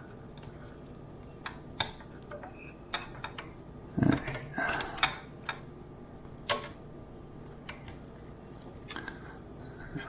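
Scattered light clicks and taps at uneven intervals from small tools and materials being handled at close range, with a brief cluster of louder knocks about four seconds in.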